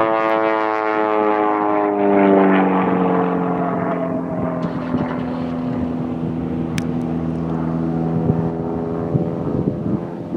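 Propeller aerobatic plane's engine droning overhead in a display. The drone slides down in pitch about two seconds in, then holds steady at a lower pitch.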